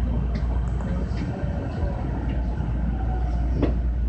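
Kintetsu 6820 series electric train running, heard on board: a steady low rumble with a few sharp clicks.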